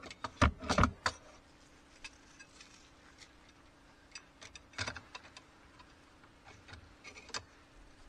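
Metal beekeeping hand tools clinking and knocking against each other as a frame grip is looked for and picked up: a quick cluster of sharp clicks in the first second, a few more about five seconds in and again just after seven.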